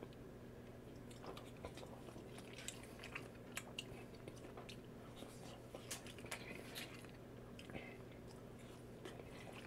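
Faint close-up chewing and small clicks and crackles of a spoon scooping fried rice and eating it, over a low steady hum.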